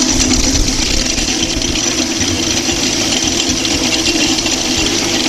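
Electric centrifugal oil spinner running steadily, its stainless drum spinning freshly fried shredded beef floss to fling out the frying oil.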